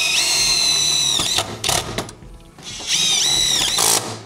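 Cordless DeWalt driver running in two bursts, driving a screw into a steel garage door track bracket; each burst is a steady whine that drops in pitch as the trigger is released.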